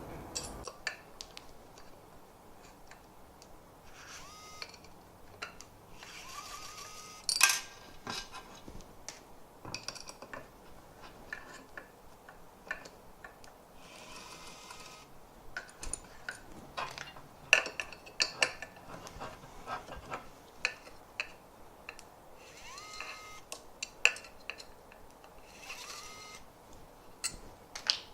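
ES121 electric screwdriver running in short spurts of about a second, several times over, each with a brief rising motor whine. Between them come clicks and clinks of small metal parts and screws being handled.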